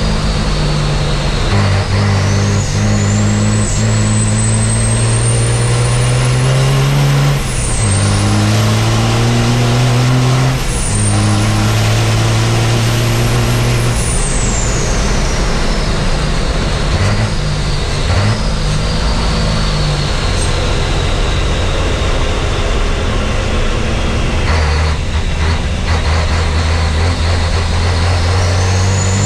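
Racing truck's turbodiesel engine heard from inside the cab under hard acceleration, its pitch climbing and dropping sharply twice as it shifts up, then falling and wavering as it slows for corners before pulling steadily again near the end. A high whistle rises and falls with the revs.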